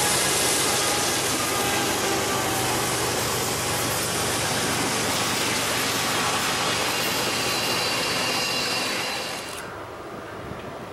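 Diesel freight locomotives and a string of covered hopper cars rolling past close by: a loud, steady rush of engine and wheel noise with faint high thin tones mixed in. About ten seconds in it cuts off abruptly to a quieter, duller train rumble from farther away.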